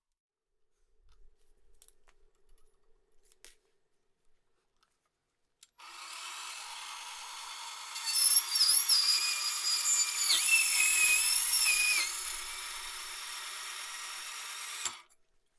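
A power tool switches on and runs steadily. For about four seconds in the middle it cuts into material, louder with a shifting high-pitched whine, then runs free again and switches off near the end. A few faint knocks come before it starts.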